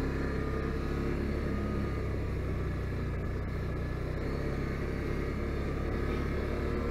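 Can-Am Outlander 570 ATV's V-twin engine running steadily under way.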